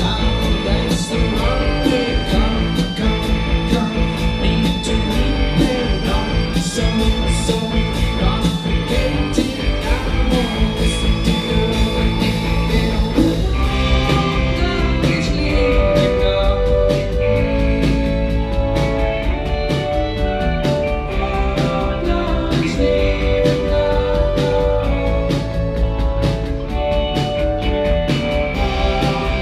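Indie pop band playing live: a drum kit keeping a steady beat under electric guitar and keyboards, with long held high synth notes at first and a repeating note figure coming in about halfway through.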